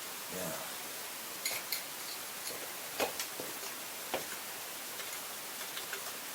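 A few light clicks and taps of tools and parts being handled, scattered irregularly over a steady background hiss.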